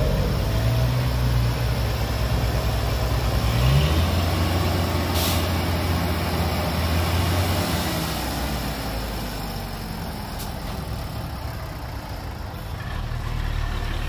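Heavy dump truck's diesel engine running. Its note rises about four seconds in, holds for a few seconds, then eases off. A short hiss comes about five seconds in.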